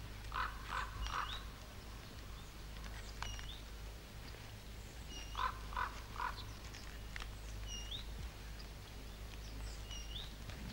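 Birds calling: two groups of three short, lower calls, about half a second in and again about five and a half seconds in, with scattered high, upward-gliding chirps between them. A low steady hum runs underneath.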